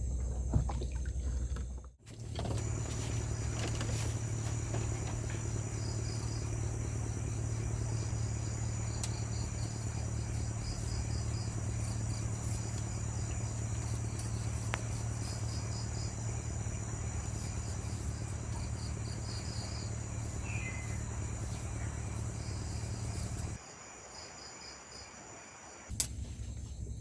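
Insects, such as crickets or cicadas, trilling in a high register, with quick pulsed chirps over a steady high drone, above a steady low hum. The sound cuts abruptly a couple of times.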